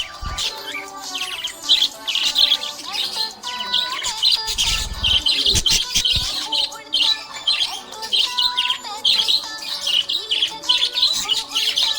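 Budgerigar chirping and warbling, a dense, continuous run of rapid high chirps and trills mixed with short whistled notes. A few dull low thuds come about five seconds in.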